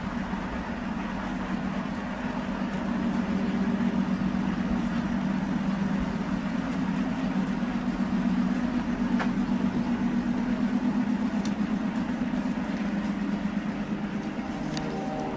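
Diesel engines of SNCF BB 75000 freight locomotives running with a steady low drone, which grows louder about three seconds in.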